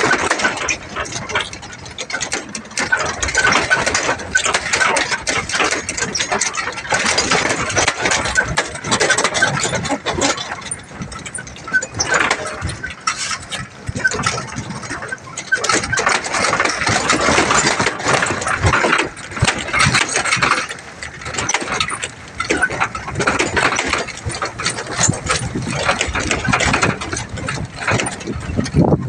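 Boom truck driving down a rough gravel road, heard from its open cargo bed: the engine runs under a constant clatter and banging of the loose lumber load and the truck body jolting over the bumps.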